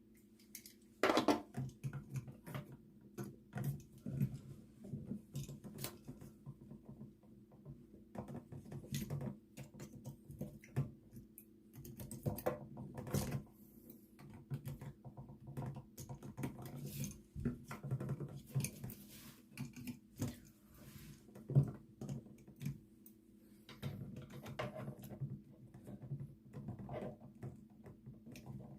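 Irregular small clicks and scrapes of metal tweezers prodding at the push-in wire release of a wall toggle switch, with a faint steady hum underneath.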